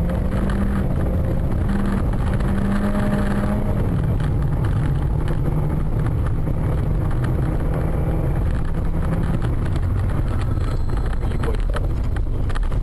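Steady engine and tyre noise of a moving car heard from inside its cabin; the engine note drops a little about four seconds in.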